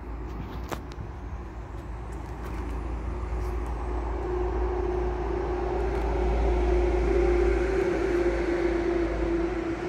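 A vehicle approaching with a steady humming tone over a low rumble, growing louder to a peak about seven seconds in and then just starting to fade as it passes.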